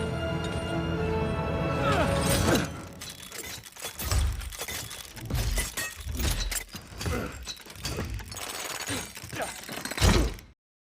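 Music for the first couple of seconds, then a run of sharp crashes and knocks with several heavy thuds, which cuts off suddenly about ten and a half seconds in.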